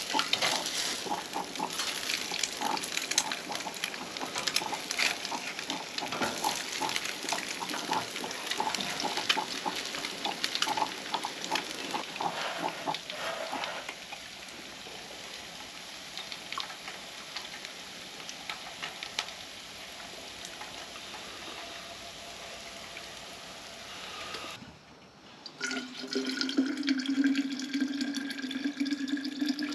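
Eggs sizzling and spattering in a frying pan on a Coleman propane camp stove, a dense crackle for about the first half that then settles to a quieter steady hiss. Near the end, after a short lull, hot coffee is poured from a stovetop coffee pot into a vacuum flask, a steady pouring sound.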